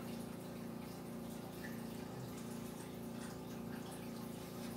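A steady low background hum that pulses about twice a second, over a faint hiss, with a few faint ticks: room tone.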